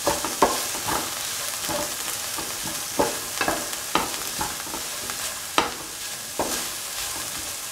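Chopped okra sizzling as it is sautéed in a pan, with a spatula stirring it and knocking and scraping against the pan at irregular intervals.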